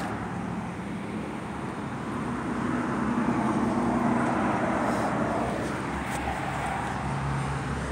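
Engine noise of a passing vehicle heard from inside a building, a steady rumble that swells to its loudest about halfway through and then fades.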